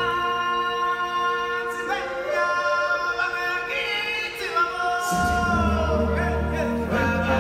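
Stage-show music with voices singing long held notes. The deep bass drops out at the start and comes back about five seconds in.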